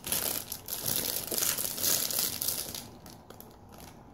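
Packaging crinkling and crackling as a wrapped wax tart is unwrapped by hand, dying down to a few faint crackles after about three seconds.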